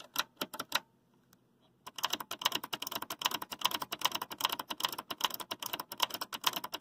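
Push-button switches of a Marantz 1122DC amplifier clicking rapidly as they are pressed back and forth, working freshly sprayed contact cleaner over the switch contacts. The clicking stops briefly about a second in, then picks up again.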